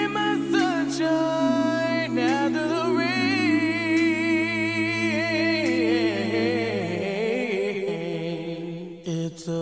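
Slow a cappella ballad: a lead voice sings long, wavering wordless notes over a group of voices holding sustained harmony. The singing dips briefly near the end.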